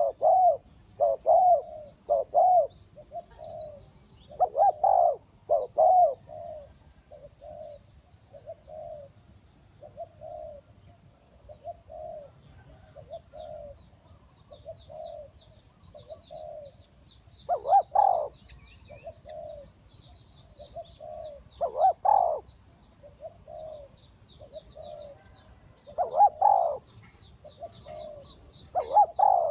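Spotted dove cooing over and over, short notes about one every second. Loud coos come in short groups, with softer coos between them. Faint, rapid high chirping runs underneath from about halfway.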